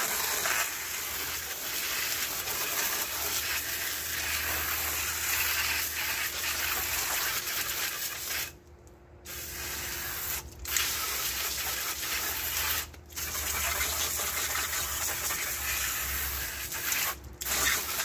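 Garden hose spray nozzle spraying water in a steady hiss onto a window air conditioner. The spray stops briefly a few times in the second half as the trigger is let go.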